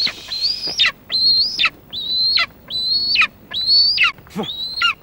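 Golden eagle calling: a run of six high cries, each held on one pitch for about half a second and then dropping away at the end.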